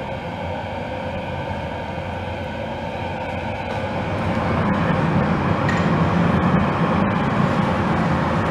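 Steady roar of glassblowing furnaces, growing louder about halfway through.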